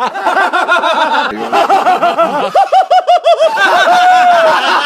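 A fit of high-pitched laughing: a rapid run of 'ha' bursts, about five a second, that turns into one long drawn-out laugh near the end.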